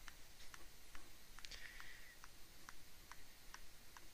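Faint, irregular clicks of a stylus tapping down on a graphics tablet as brush strokes are laid in, about two to three a second, with a brief soft hiss about one and a half seconds in.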